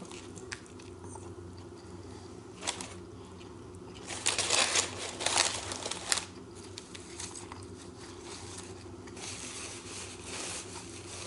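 Paper sandwich wrapper rustling and crinkling as the sandwich is handled while being eaten, with a louder flurry about four to six seconds in, over a steady low hum.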